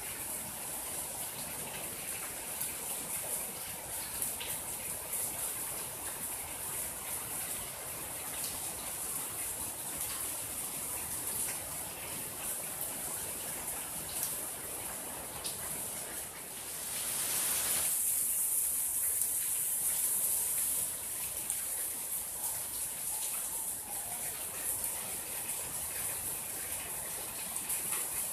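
Steady rain falling on a garden, with scattered drops ticking through the hiss. About two-thirds of the way through, the rain grows louder for a few seconds, then settles back.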